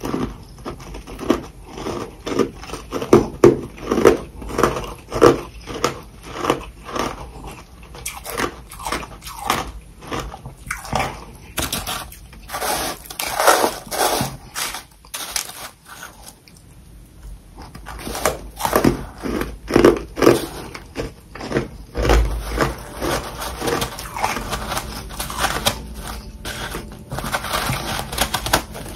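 Ice being bitten and chewed close to the microphone: a run of crisp crunches, one or two a second, with a short pause about midway before the chewing picks up again.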